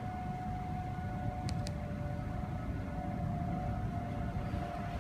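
Outdoor tornado warning sirens sounding in steady held tones. About a second and a half in, a second siren at a slightly lower pitch joins the first. Both run over a steady low rumble.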